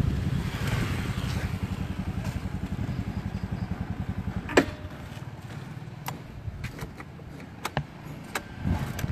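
A small motorcycle engine running with a fast low throb, which fades and stops about four and a half seconds in with a sharp click. A few light clicks follow.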